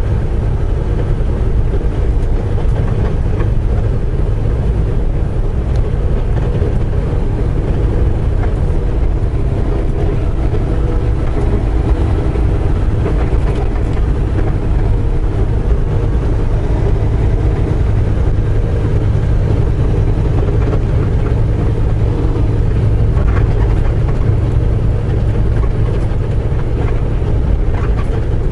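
Semi truck cruising at highway speed, heard inside the cab: a steady diesel engine drone with road and tyre noise, unchanging throughout.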